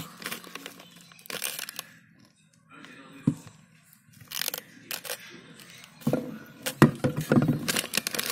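A single sharp click about three seconds in as the flip lid of a plastic straw water bottle is pressed shut, among short scattered rustles. From about six seconds on, a plastic snack wrapper crinkles and crackles in the hands, louder than anything before it.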